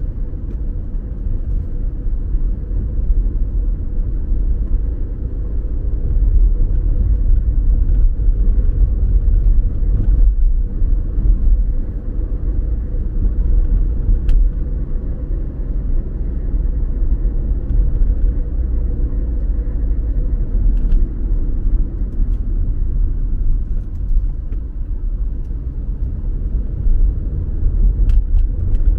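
A car driving at steady speed: a continuous low rumble of engine and tyres on the road, with a few faint clicks now and then.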